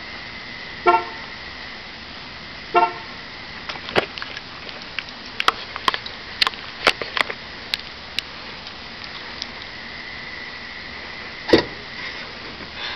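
Two short car-horn toots about two seconds apart, then a run of sharp clicks and knocks and a single louder thump near the end, over a faint steady high-pitched tone.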